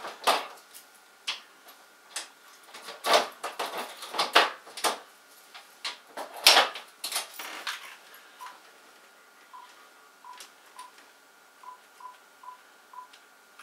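Clicks and knocks from a metal wall panel's door being opened, handled and shut on a cell phone. Then, from about eight seconds in, about eight short keypad beeps as a number is dialed on a phone handset.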